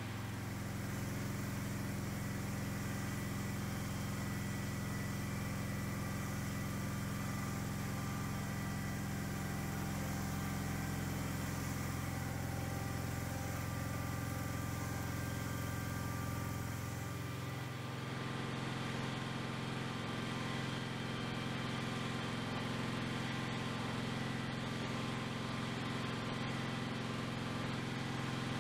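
Cub Cadet garden tractor engine running steadily. About 17 seconds in the sound changes: the hiss drops away and the engine note shifts, as with a change of throttle or load.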